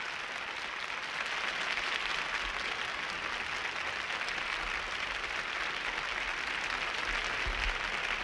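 Studio audience, largely children, applauding steadily.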